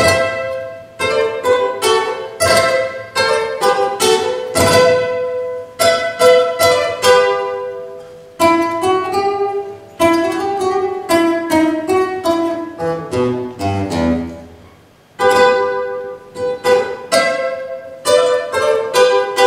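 Solo nylon-string classical guitar playing a Peruvian vals criollo, with plucked melody and chords. About 13 seconds in, a run of notes steps down into the bass and dies away, and the playing starts again strongly about two seconds later.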